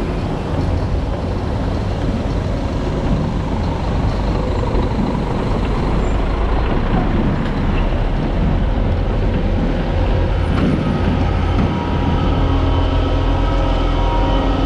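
Scania S650 V8 truck running under way with a cement tanker trailer, engine and tyre noise heard from beside the trailer wheels. There is a brief drop in level about twelve seconds in, after which the engine settles into a steadier, more even note.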